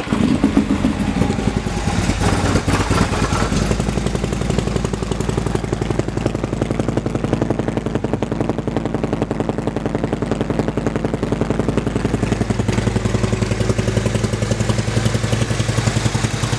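A 2015 Harley-Davidson CVO Ultra Limited's 110-cubic-inch Screaming Eagle V-twin idling through its Vance & Hines exhaust, just after starting, with a steady, even run of exhaust pulses.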